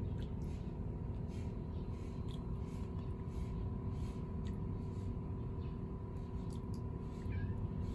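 Steady low background rumble with a faint steady hum, scattered light ticks, and a short chirp near the end.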